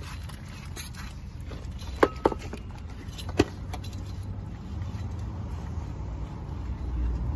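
Three sharp metal clinks of brake parts or tools being handled at a car's front wheel hub, about two to three and a half seconds in, over a steady low rumble that grows louder near the end.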